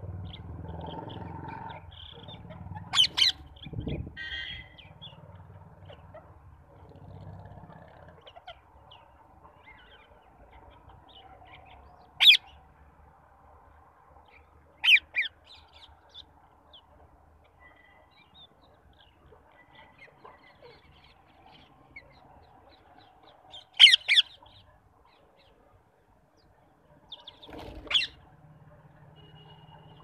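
Rose-ringed parakeets giving short, harsh screeches every few seconds, some in quick pairs, with quieter chatter between them.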